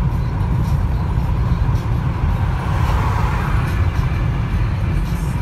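Steady low road rumble of a car cruising on a freeway, heard from inside the cabin: tyre and engine noise. It swells briefly about three seconds in as another car passes close alongside.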